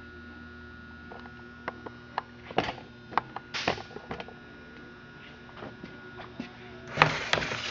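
Light clicks and knocks from a Stihl 038 chainsaw being handled, over a steady mains hum, with a louder run of knocks and rattles near the end.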